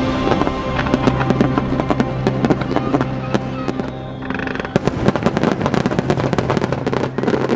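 Aerial fireworks bursting and crackling: a dense run of sharp pops and crackles, thickest in the second half.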